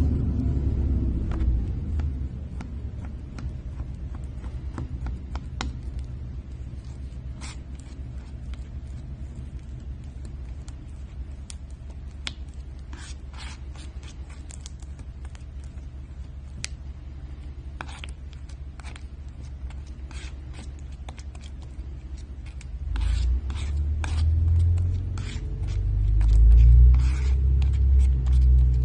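Slime being handled: scattered short wet clicks and pops over a low rumble, with the rumble and clicks growing louder and busier near the end.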